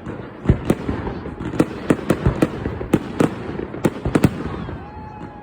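Fireworks display: a rapid, irregular series of sharp bangs, about a dozen, with rumbling echo between them, easing off near the end.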